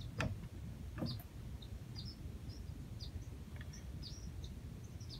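Newly hatched cockatiel chicks chirping in short, high peeps, several a second, with two soft knocks in the first second or so.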